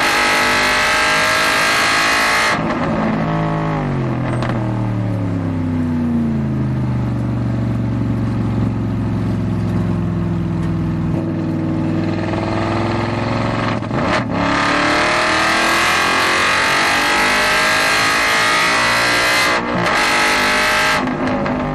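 Aston Martin Vantage GT4's V8 heard from the cockpit: high revs at first, then the revs drop in quick downshift steps as the car brakes for a corner, run low through the bend, and climb again under hard acceleration with two upshifts in the second half.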